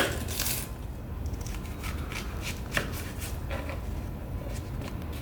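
Knife cutting a red onion on a cutting board: irregular slicing clicks and taps, with a sharp knock right at the start.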